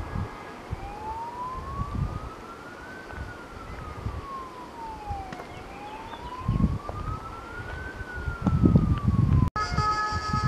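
A siren wailing, its pitch climbing and falling slowly about every five seconds, twice over, with low irregular thumps beneath it. The sound cuts out near the end and is followed by a different sound with steady tones.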